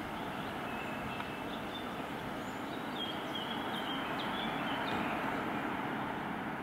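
A road vehicle passing, its engine and tyre noise swelling to a peak about five seconds in and fading near the end, with birds chirping.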